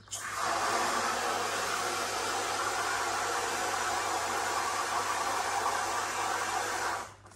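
A loud, steady rushing hiss that starts abruptly and cuts off after about seven seconds.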